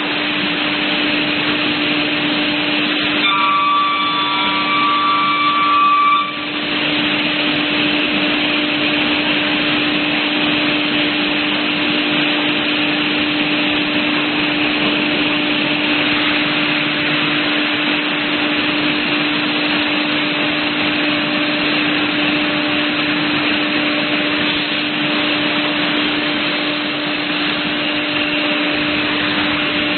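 CNC panel saw running: a steady loud rushing noise with a constant hum underneath. About three seconds in, a whine of several pitches joins it for about three seconds and cuts off suddenly.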